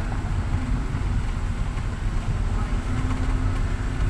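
Car driving over a rough unpaved dirt road, heard from inside the cabin: a steady low rumble of engine and tyres on the gravel surface.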